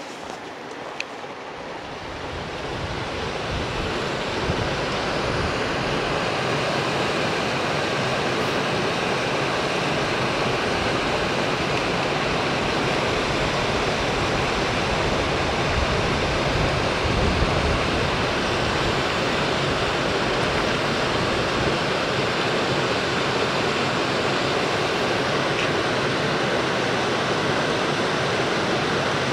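Shallow rocky creek running over stones: a steady rush of water that swells over the first few seconds and then holds.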